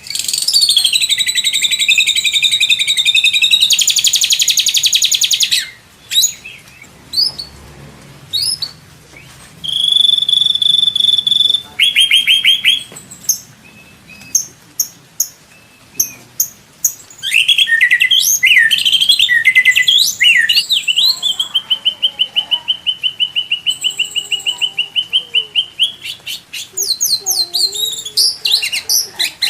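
White-rumped shama (murai batu) singing a varied run of fast trills, rapid repeated notes and short whistles, with one long steady whistle held for about five seconds in the second half.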